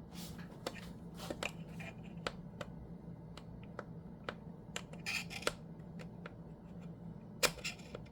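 Small irregular metallic clicks and taps of a precision screwdriver with a Torx T8 bit being fitted and tried against a small screw, which turns out not to fit. The clicks come singly, with a quick cluster about five seconds in and a sharper pair near the end, over a low steady hum.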